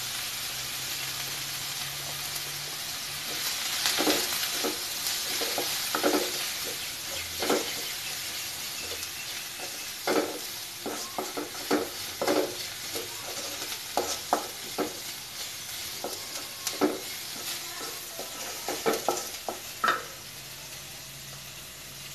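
Chopped onions and spice powders frying in oil in a metal kadai, sizzling steadily. A wooden spatula stirs and scrapes them against the pan with irregular knocks, from a few seconds in until near the end.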